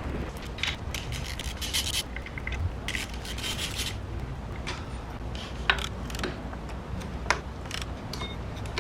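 Hand-tool work on a BMW S50 engine being torn down: rasping, scraping strokes in two short spells, then a few sharp metallic clicks, over a steady low hum.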